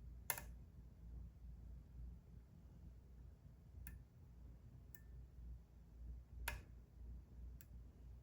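Five faint, sharp clicks at irregular spacing, two of them louder, from picking tools working inside a Kwikset SmartKey lock cylinder while it is being picked, over a low steady hum.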